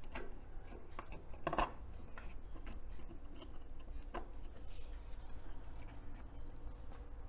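Wiring harness and plastic connectors being handled and fitted onto a fridge control board: faint rustling with a few short clicks, the sharpest about a second and a half in, over a low steady hum.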